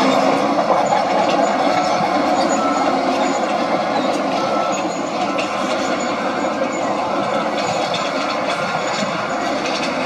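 Komatsu crawler bulldozer working under load, its diesel engine running steadily while the steel tracks clatter as it pushes a pile of dirt and rock.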